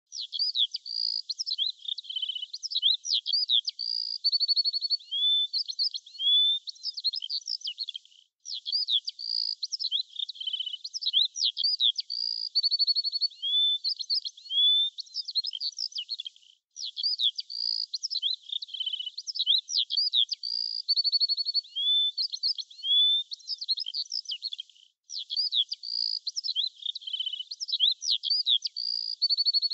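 Songbird chirps, quick trills and rising whistles. The same run of calls, about eight seconds long, repeats over and over with a short silent break between repeats, like a looped recording of birdsong.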